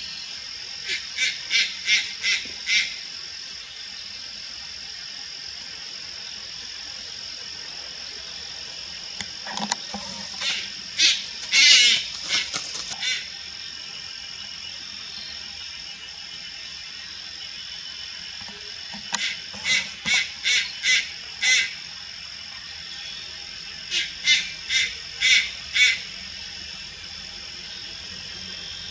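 Juvenile Malayan night heron calling: short, rough, high notes given in quick bouts of five or six, four bouts in all, over a steady high-pitched whine.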